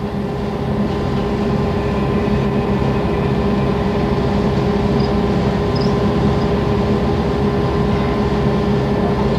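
Construction machinery running steadily, a continuous mechanical drone with a constant low hum.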